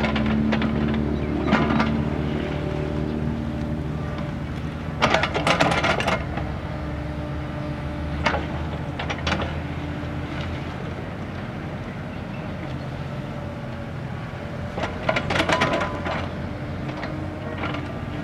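Kubota mini excavator's diesel engine running steadily under digging work. Bursts of scraping and clattering come from the bucket biting into soil and broken concrete, loudest about five seconds in and again about fifteen seconds in.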